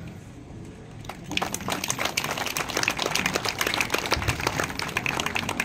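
Audience applauding, a dense patter of hand claps that starts about a second in and eases off near the end.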